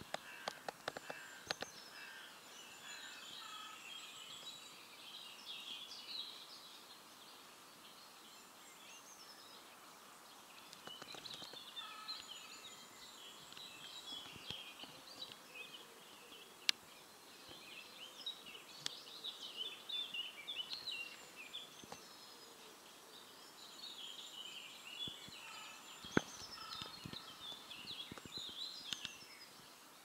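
Small songbirds chirping and twittering in repeated bursts over a faint background hiss, with a few sharp clicks.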